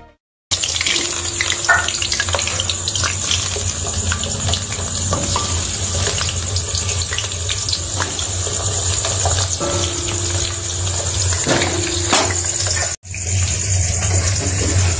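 Potato pieces sizzling as they fry in hot oil in a karahi: a steady hiss with a low hum underneath and scattered small clicks, cutting out briefly near the end.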